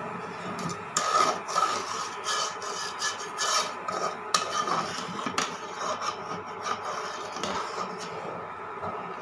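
A metal spoon scraping round the bottom and sides of a cooking pot in repeated, irregular strokes, starting about a second in, as hot milk is stirred while it boils down.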